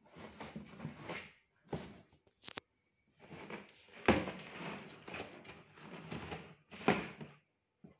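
Cardboard box rustling and scraping as a cat paws and claws at its flaps, with two sharp knocks about four and seven seconds in.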